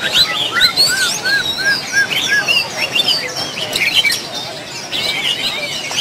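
Many caged songbirds singing and chirping at once in a dense, overlapping chorus of short whistled notes. About a second in, one bird repeats a short arched note five times, about three a second.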